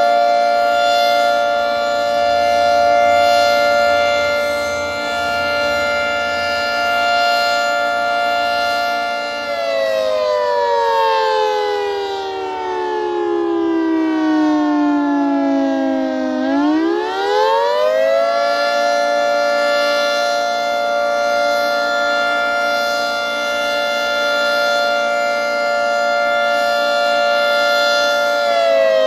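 Federal Signal 3T22 three-tone siren sounding the attack signal. Its chord holds steady, slides down in pitch for about seven seconds, climbs back quickly, holds again, and starts to fall near the end.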